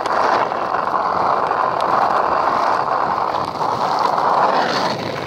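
Longboard wheels rolling over asphalt, a steady, loud rolling roar as the board is ridden.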